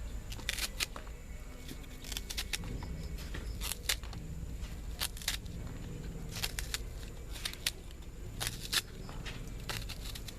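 Fresh taro stalks being cut into short pieces: a series of crisp, sharp cutting snaps at an uneven pace, often two close together.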